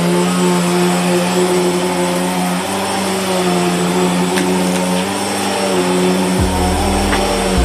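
Bissell PowerForce vacuum cleaner just switched on, its motor pitch rising briefly as it spins up and then running as a loud, steady whine. A deeper rumble joins near the end, and the sound cuts off suddenly.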